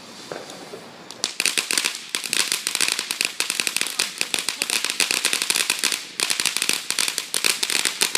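Fireworks crackling: a dense, rapid run of sharp pops that starts about a second in and keeps going, with a brief break near the six-second mark.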